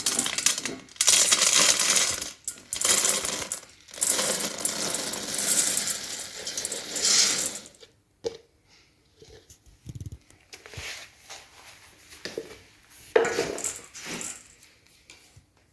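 Dry puffed rice being poured into a small metal bowl: a dense, steady rattle of light grains for about eight seconds, broken twice by short pauses, then scattered light clicks as the last grains fall and settle.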